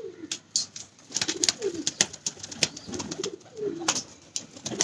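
Domestic pigeons cooing, a few low wavering coos, over a scatter of sharp clicks and taps.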